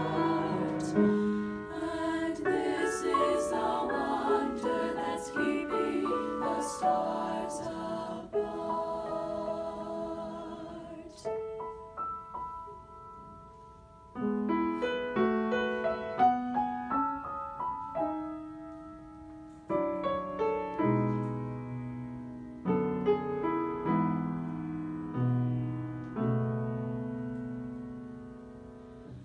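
Four-part upper-voice (SSAA) singing holding a chord, then a piano playing alone: chords and single notes struck and left to ring and fade. One chord fades almost to nothing just before the middle, and low bass notes come in during the second half.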